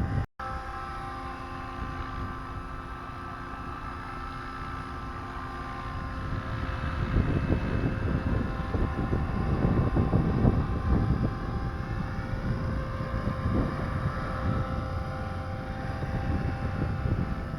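Model aircraft motor running at a steady speed, a constant buzzing tone, with wind rumbling on the microphone and growing stronger about seven seconds in.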